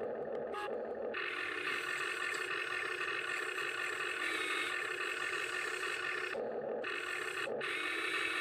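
Radio-controlled model excavator's electric motors and gearboxes whining steadily as the boom, stick and bucket work, scooping snow. The tone shifts abruptly a few times as different motions start and stop.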